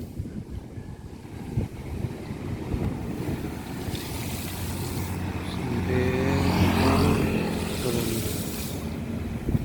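Wind buffeting the microphone over rough sea, with a steady engine drone that swells about six seconds in and eases off near the end.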